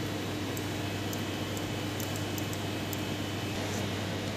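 Steady machine hum: a low drone with a fainter steady higher tone, and a few faint ticks.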